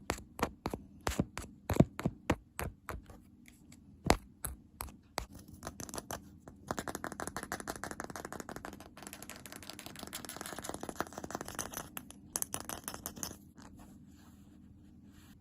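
ASMR tapping and scratching on an object. First come separate sharp taps, a few a second. About seven seconds in it changes to a fast, steady scratching, which dies down near the end.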